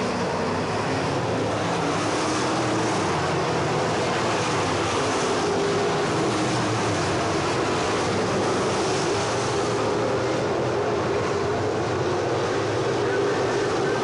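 Pro crate late model dirt race cars' V8 engines running together as the field circles the track, a steady engine drone whose pitch slowly wavers.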